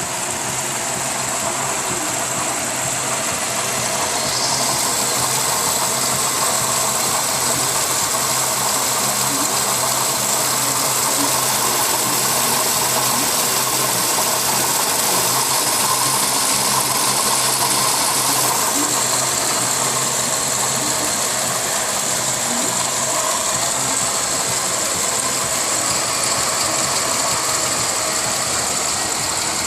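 1999 Pontiac Grand Am engine running steadily with a high, constant whine over the mechanical noise, the sound of a failing water pump.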